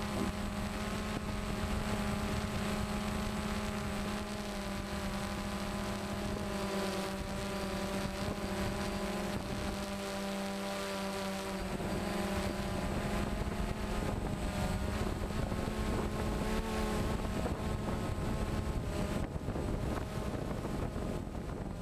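DJI Phantom quadcopter's motors and propellers in flight, a steady multi-toned hum that wavers slightly as the motor speeds shift, picked up by the GoPro camera it carries.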